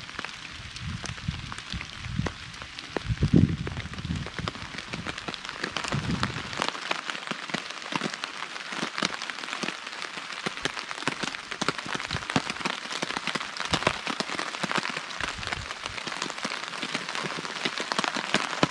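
Steady rain, with many drops tapping on a tarp overhead. There is some low rumbling in the first few seconds.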